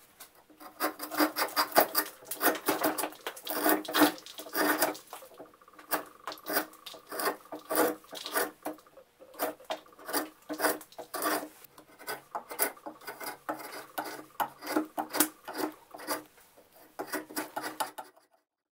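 Drawknife stripping bark off a Bradford pear branch: quick repeated pull strokes, several a second, each a short scrape of steel through bark and wood. The strokes stop just before the end.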